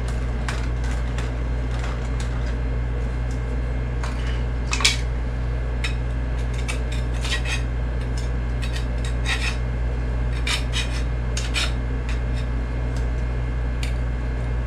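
A metal tool scraping and clinking against a bucket in irregular strokes while a batch is mixed by hand, over a steady low hum.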